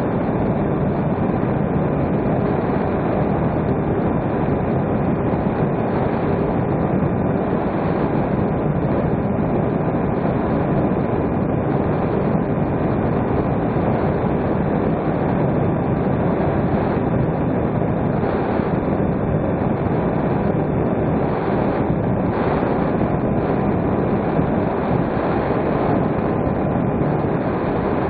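Steady rush of airflow over the microphone of a camera aboard a small electric RC plane in cruise, with the even hum of its motor and propeller running at constant power underneath.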